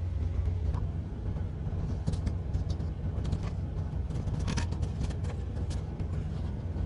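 Steady low rumble of an idling engine, with a scatter of short clicks and ticks from about two to six seconds in.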